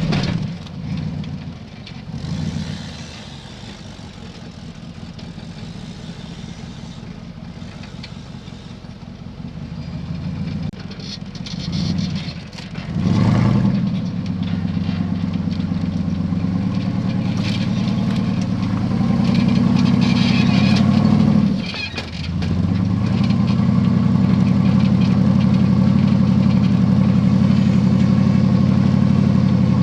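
Rock-crawler buggy engine revving in a few short bursts, then held at high revs under sustained load from about midway, dropping off briefly once before picking up again.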